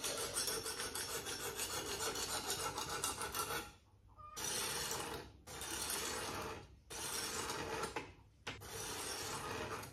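Sharpening stone on a guided knife sharpener rasping back and forth across a steel blade. It runs as one unbroken stretch of quick strokes for about the first three and a half seconds, then as separate strokes broken by four short pauses. The stone is grinding steel off the edge to work chips out of it.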